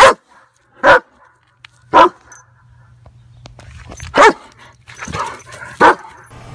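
German Shepherd dog barking: five single sharp barks, the first three about a second apart, then a longer pause before two more.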